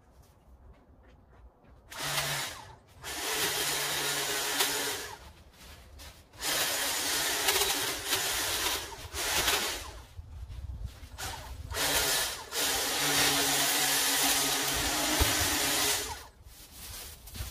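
Battery-powered pole trimmer cutting back overgrown shrub branches. The motor runs in a series of bursts, switched on and off, starting about two seconds in and stopping shortly before the end.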